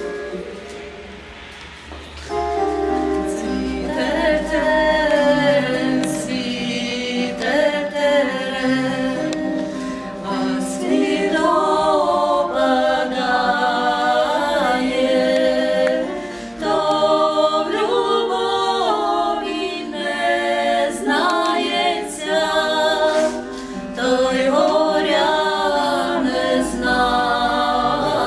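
Three women singing a cappella in harmony, several voices moving together on held, sliding notes; the singing comes in about two seconds in.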